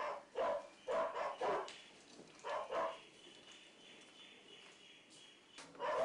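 A dog barking over and over, about two barks a second, falling silent about three seconds in and starting again near the end. A faint steady high tone fills the quiet stretch.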